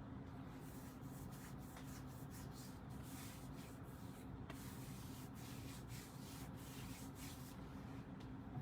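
Faint, irregular rubbing and rustling noises over a steady low electrical hum.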